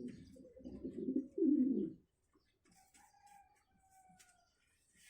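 A dove cooing in low, rolling phrases that cut off abruptly about two seconds in. Afterwards, other birds give faint, high whistled calls.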